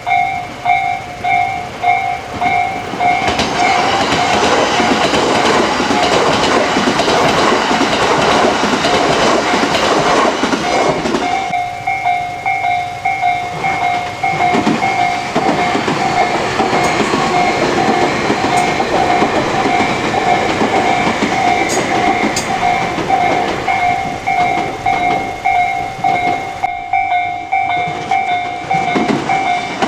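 Japanese level-crossing alarm ringing its fast repeated two-tone "kan-kan" while electric trains pass, wheels clattering over the rail joints. One train goes by loudly in the first third and another follows after the alarm briefly breaks off.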